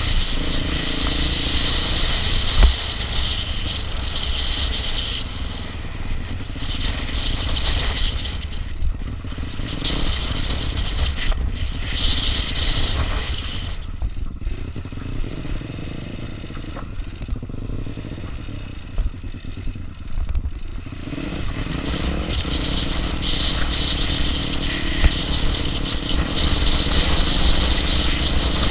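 Motorcycle engine running under way, with wind rushing over a helmet-mounted camera; the sound eases off somewhat through the middle stretch and picks up again near the end.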